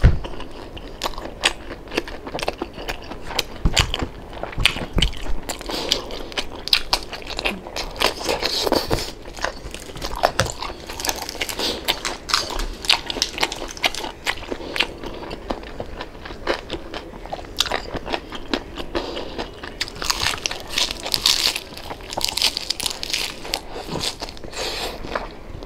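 A person crunching and chewing the crisp deep-fried skin of crispy pata (pork knuckle): a dense, continuous run of crackling bites.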